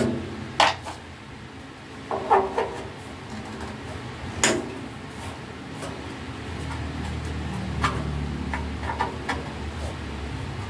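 Hand tools clinking and tapping against the sheet-metal case of an arc welding machine as its screws are worked loose: a few sharp, irregular knocks over a low steady hum.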